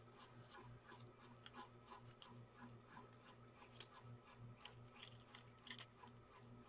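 Near silence: faint, scattered light clicks and rustles of small clear plastic cups and sticker labels being handled, over a low steady hum.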